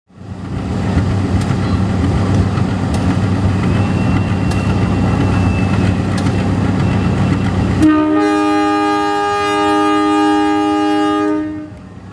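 CC 201 diesel-electric locomotive running as it pulls past, its diesel engine rumbling with a few sharp clicks. About eight seconds in, its horn sounds one long multi-tone blast of nearly four seconds before the sound fades.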